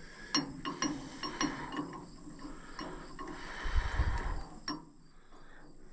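Light metallic clicks and clinks from hands and tools working on tractor alternator wiring, a handful of separate sharp ticks in the first two seconds, then a dull low thump about four seconds in.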